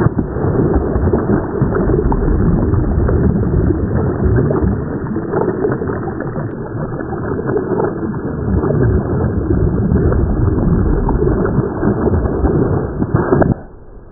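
Loud, dull rushing and gurgling of water that starts suddenly and cuts off abruptly near the end.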